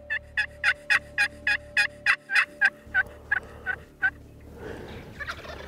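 Pot-style friction turkey call worked with a wooden striker: a run of about fifteen short yelps at three to four a second, getting quieter toward the end. Near the end a faint gobble from a wild turkey answers the call.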